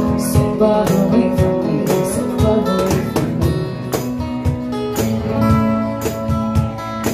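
Instrumental passage of a live acoustic band: an acoustic guitar is played over a cajon keeping a steady beat of low thumps and sharp slaps.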